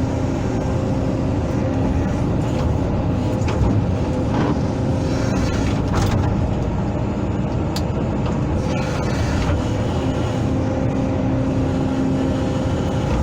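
Hydraulic excavator's diesel engine running steadily under work, with a constant droning hum. A few short sharp knocks come through partway in.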